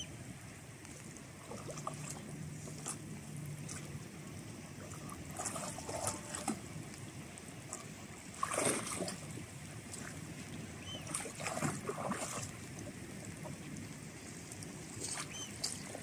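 Shallow water sloshing and lightly splashing as a dog wades through a rock pool, with a few louder splashes now and then.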